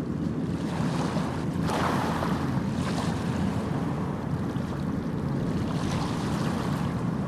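Small sea waves washing against the shore, swelling about two seconds in and again near six seconds, over a steady low rumble of wind on the microphone.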